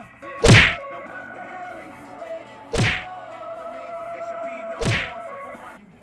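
Music with three heavy impact hits about two seconds apart, the first the loudest, over steady held tones.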